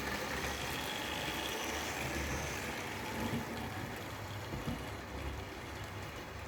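Hornby OO-gauge model trains running along the layout track: a steady low motor hum and wheel rumble that slowly fades as they move away.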